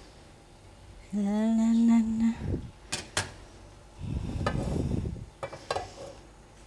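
Kitchenware being handled on a countertop: two sharp clinks a few seconds in, then rustling and a few lighter clicks. A woman's drawn-out hum or vowel about a second in is the loudest sound.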